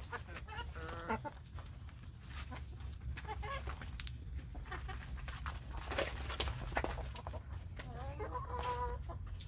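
A flock of hens clucking as they feed on scattered corn, with many short sharp taps from their pecking. A longer call near the end.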